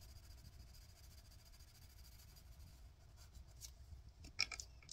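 Faint scratching of a colored pencil shading a square on paper, followed by a few light clicks and taps near the end.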